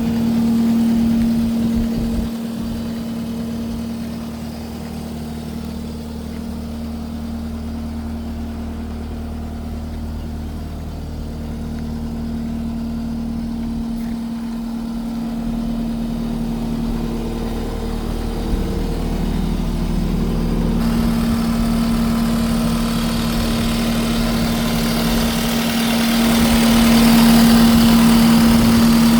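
Case SR220 skid steer's diesel engine running steadily at idle, growing louder about two-thirds of the way through and louder again near the end.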